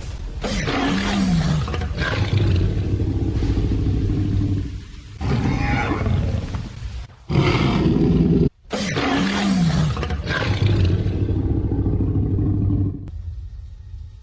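The Jurassic Park T. rex roar sound effect, several long loud roars one after another. The same roar recurs about halfway through, just after the sound drops out suddenly for an instant.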